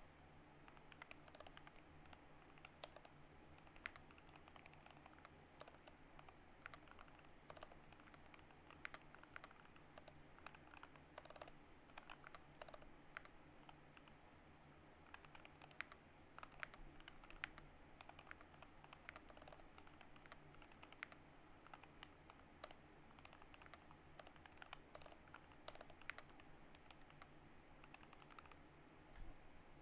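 Typing on a GK61 mechanical keyboard with optical Gateron Yellow linear switches fitted with heavier Outemu Red springs: a steady run of quick, light key clicks, quiet, over a low steady hum.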